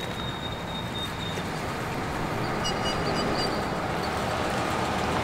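Road traffic: a vehicle driving past on the road, its noise slowly growing louder, with a few faint short high squeaks around the middle.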